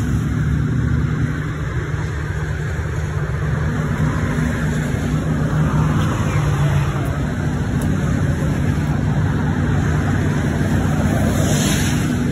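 A flatbed tow truck's engine idling steadily: an even low hum with a little road noise above it.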